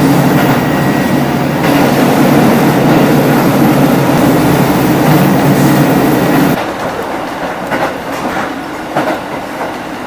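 Diesel railcar heard from inside the cabin: the engine runs under power as a loud, steady low drone along with wheel and rail noise. About six and a half seconds in the engine drone drops away suddenly as the power is shut off. The train coasts on with a quieter rumble and a few faint wheel clicks.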